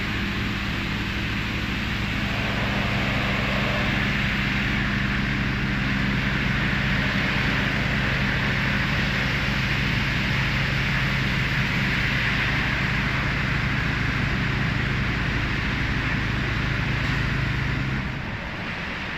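Automatic tunnel car wash spraying a car with high-pressure water: a steady hiss of spray over a low, even machine hum. The hum cuts off near the end and the sound drops.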